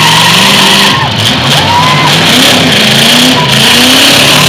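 Full-size demolition derby cars' engines running hard and revving up and down, with short squealing glides over a constant rumble and noise.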